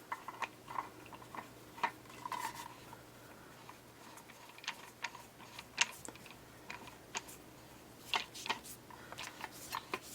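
Scattered light clicks and ticks of plastic gun parts being handled as the CO2 stock section is screwed back onto a paintball shotgun, with a few sharper clicks about six and eight seconds in.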